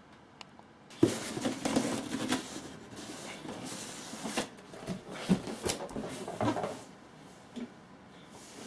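Cardboard packaging being handled and opened, with scraping, rustling and several knocks that start with a sharp one about a second in. It quietens near the end.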